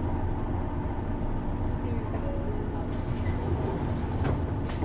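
Isuzu Erga city bus's diesel engine running steadily, heard from inside the passenger cabin, with a few short clicks and hisses near the end.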